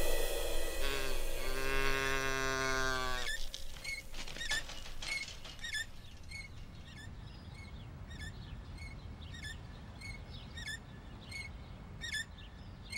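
A few seconds of orchestral music end, then a shopping cart's wheel squeaks rhythmically as it rolls, about one and a half short squeaks a second.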